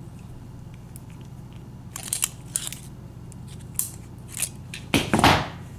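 Aluminium-can shim being twisted with pliers around a padlock's steel shackle: scattered small metal clicks and scrapes, then a longer, louder scrape about five seconds in, as the shim is worked in to push back the lock's spring-loaded locking tab.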